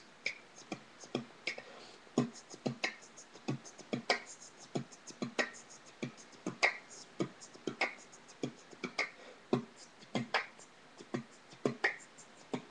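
Human beatboxing: a steady rhythm of sharp percussive mouth sounds, deep low hits alternating with higher, crisper clicks and hisses, several strokes a second.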